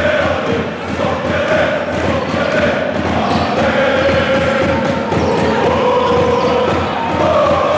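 Large crowd of basketball supporters chanting in unison, over a steady beat of thumps.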